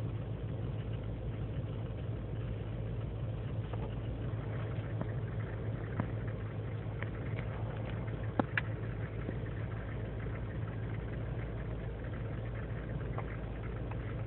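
GMC Sierra's 5.3 litre V8 idling steadily on its own, a few minutes after a cold start in single-digit temperatures. The owner blames the erratic cold idle, with its lean and misfire codes, on a failing intake manifold gasket. A few short sharp clicks come through near the middle.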